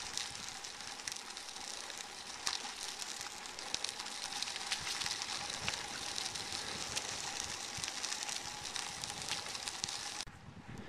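Bicycle tyres rolling along a paved trail scattered with fallen leaves: a steady hiss full of small crackles, cutting off abruptly about ten seconds in.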